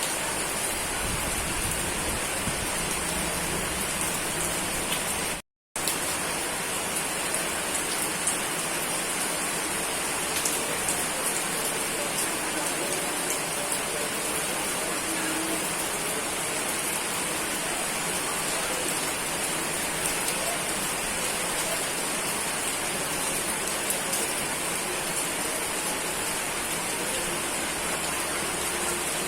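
Steady rain falling in an even, dense hiss. The sound cuts out completely for a split second about five and a half seconds in, then resumes.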